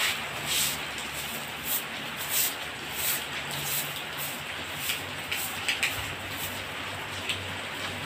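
Rain falling in a strong wind: a steady hiss with frequent brief, sharper splashes of drops.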